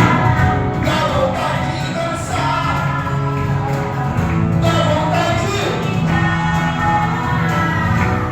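Evangelical worship band playing a song, with a voice singing over a steady bass line.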